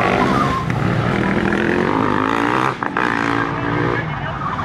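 Supermoto motorcycle engine running and revving, its pitch rising and falling, with a brief dip just before the three-second mark.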